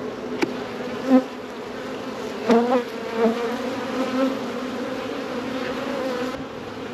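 Honey bees buzzing around an opened hive: a steady hum that swells louder a few times, bending in pitch as bees fly close by. A single sharp click about half a second in.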